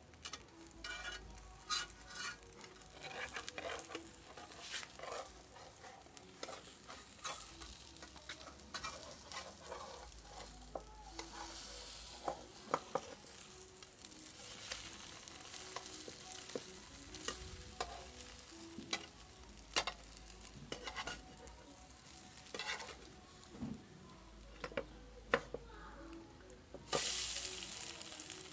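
An egg omelette sizzling as it fries in a non-stick pan, while a spatula scrapes and taps against the pan to loosen and turn it. The sizzle turns loud for a moment near the end.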